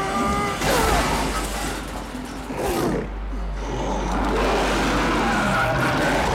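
Movie monster sound effects: a demon creature snarling and roaring, its pitch wavering and gliding up and down, over a steady low rumble and film score.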